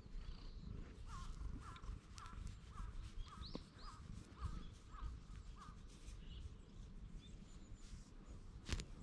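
A cat purring steadily as it is stroked, while a bird calls in a run of about ten short notes, roughly two a second, with a few higher chirps. A single sharp knock sounds near the end.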